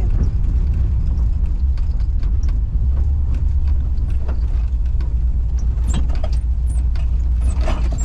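Volkswagen Kombi van driving over a rough, stony dirt road, heard from inside the cabin: a steady low rumble of the engine and tyres, with scattered clicks, rattles and brief squeaks as the body and loose things inside are jolted.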